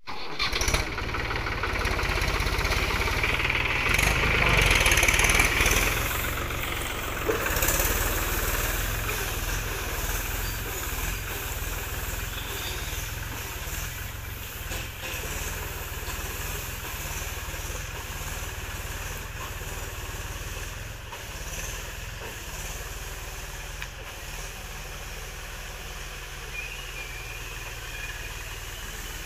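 Mahindra 275 DI tractor's three-cylinder diesel engine running as the tractor drives over heaped paddy straw, loudest about four to six seconds in, then steadier and slowly fading as it moves away.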